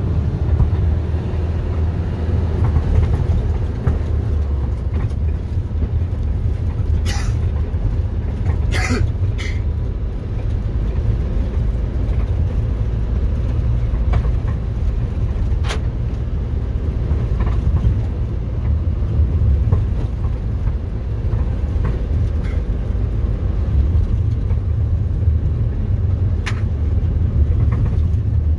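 Road vehicle driving along: a steady low engine and road rumble, with a few sharp clicks or knocks.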